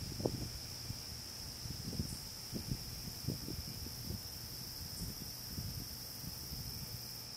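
A steady, high-pitched chorus of night insects trilling without a break, over irregular low thumps and rumble that are strongest in the first half.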